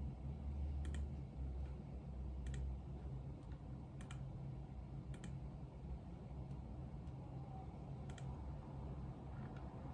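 Scattered single clicks of desk work, about five, spaced a second or more apart, over a low steady room hum.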